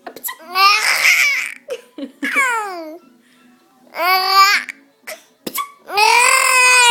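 Baby laughing and squealing in four high-pitched bursts, one of them sliding down in pitch and the longest near the end.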